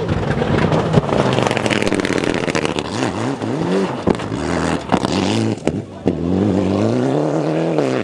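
Rally car driven hard on gravel: the engine revs up and drops back several times through gear changes, with sharp cracks and the hiss of gravel spraying from the tyres. Near the end the engine climbs steadily as the car accelerates away.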